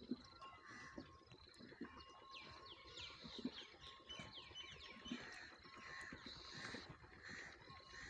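Faint sound of a water buffalo drinking from a trough, with soft low gulps about once a second. Birds chirp quick falling notes behind it.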